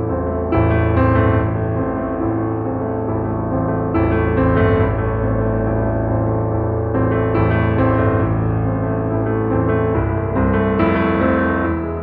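Piano background music, chords changing every few seconds.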